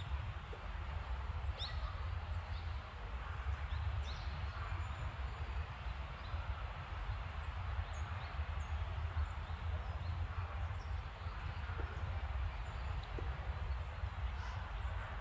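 Snowy park ambience: a steady low rumble and grainy hiss, with a few short, faint high-pitched bird chirps scattered through it.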